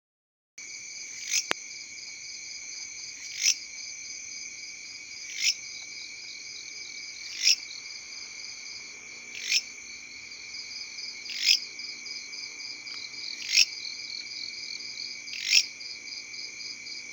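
A belalang, a grasshopper-type insect, calling: a steady high-pitched buzzing trill that starts about half a second in, with a louder sharp 'krekk' about every two seconds.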